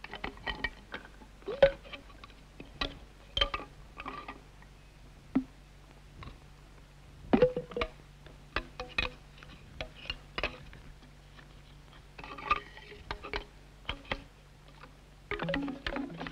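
Irregular sharp knocks and clicks of bamboo tubes being struck, cut and handled against a stone. A few of the louder knocks ring briefly.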